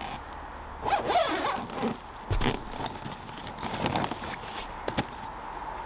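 Zip on a paddleboard's fabric stowage bag being pulled closed in several short pulls, with a single click near the end.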